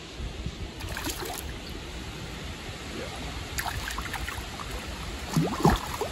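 A hooked carp splashing and churning the water at the surface close to the bank, with a louder splash near the end.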